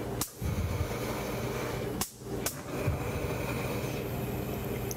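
Three sharp clicks over a steady hum: one near the start and two close together about two seconds in.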